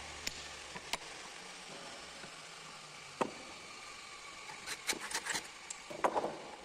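Scattered sharp clicks and knocks of hand-tool work on a bamboo piece clamped in a steel bench vise, a few single ones early and a quick cluster near the end.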